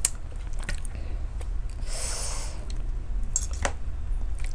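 A metal spoon and fork clicking against a ceramic plate a few times while fish is picked apart, with a brief hissy breath-like noise about two seconds in, over a steady low hum.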